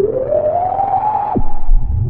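Spacey electronic music: a single gliding lead tone rises slowly, holds, then swoops sharply down about one and a half seconds in, over a low rumble.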